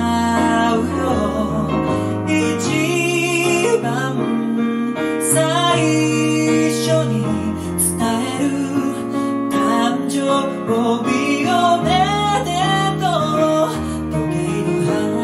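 Music: a song with a woman singing over piano and guitar.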